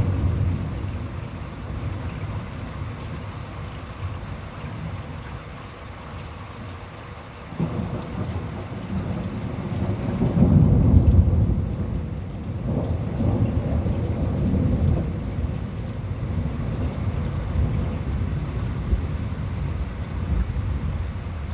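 Thunder rumbling over steady rain. The rumble swells again about eight seconds in and is loudest around eleven seconds.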